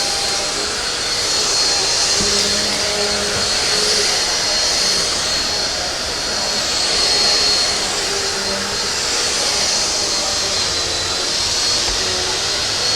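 Black + Decker Swivel Lite corded upright vacuum running steadily, a loud rush of air with a high whine, as it vacuums up cereal.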